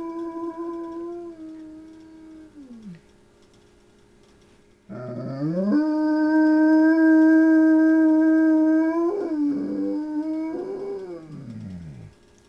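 A large 100-pound dog howling in a deep, baritone voice: one howl drops in pitch and fades out about two to three seconds in, then after a short pause a second howl rises, holds a steady low note for about four seconds, and slides down to end near the close.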